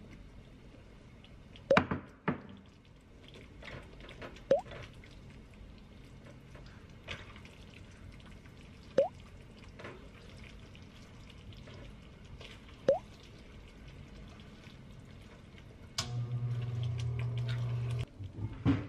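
Thick rosé pasta sauce bubbling in a frying pan, with single wet plops that rise in pitch every few seconds, a double one near the start. Near the end a low steady hum runs for about two seconds and cuts off.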